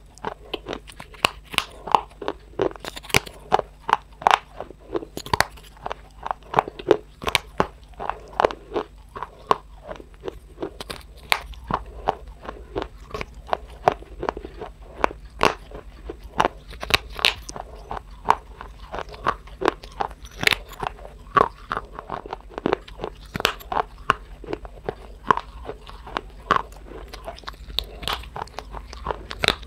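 Close-miked crunching bites and chewing of brittle baked clay: sharp, crisp crunches come a few times a second throughout.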